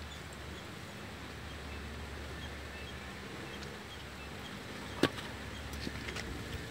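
A small stainless-steel cup pressed and twisted through a thin raw potato slice on a wooden cutting board, with one sharp click about five seconds in and a few faint clicks after, over a steady low background rumble.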